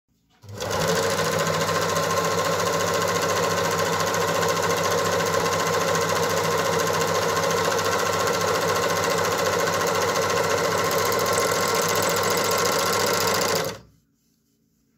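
Overlock (serger) sewing machine running at a steady speed as it stitches an overlocked edge along fabric, starting about half a second in and stopping near the end.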